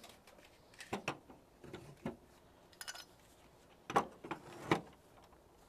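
Truck air-brake hoses with their metal gladhand couplings, and the trailer electrical cable, being hung up on the holders on the back of a tractor cab: a handful of scattered clunks and clicks as the couplings knock on their mounts, the loudest two a little before the end.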